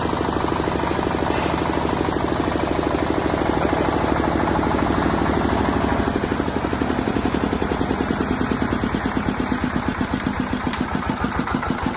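Bajaj 10 kVA diesel generator engine running with a rapid, even chugging of firing pulses. In the second half the pulses grow more distinct and uneven.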